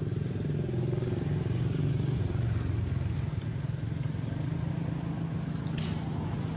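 Steady low engine drone, with a brief short hiss near the end.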